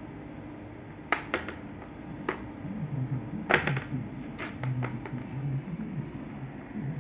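Scattered sharp plastic clicks and knocks from a plastic water cooler jug being handled, its swing handle and flip-top lid clacking, starting about a second in.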